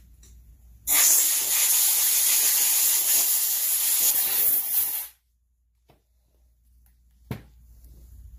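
A loud, steady spraying hiss lasting about four seconds and cutting off suddenly, followed by a couple of light clicks.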